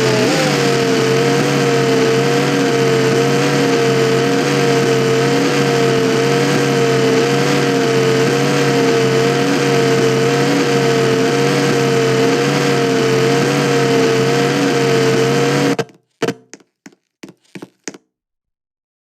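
Ceiling fan motor running with a loud, steady hum whose pitch wavers slightly in a slow, regular cycle. It cuts off suddenly about sixteen seconds in, followed by a few sharp clicks and knocks.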